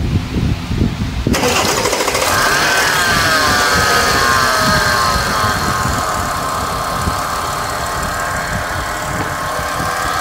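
Audi 3.0 V6 supercharged engine starting a little over a second in, its revs falling over the next few seconds as it settles into a steady idle. The newly fitted drive belt turns over its pulleys.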